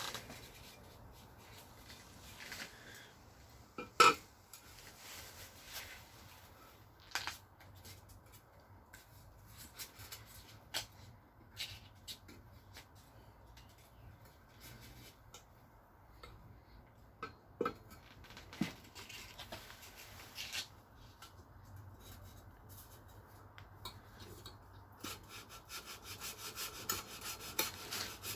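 Hand sanding of a metal camshaft bearing carrier on sandpaper held flat, with scattered clicks and knocks as the part is handled, a sharp knock about four seconds in. Quick, even back-and-forth sanding strokes come near the end, smoothing scratches out of the bearing surface.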